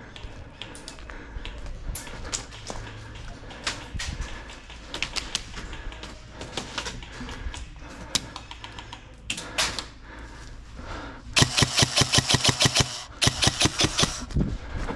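Airsoft gun firing on full auto in two short bursts of rapid, evenly spaced clicking shots near the end, after scattered faint clicks and taps.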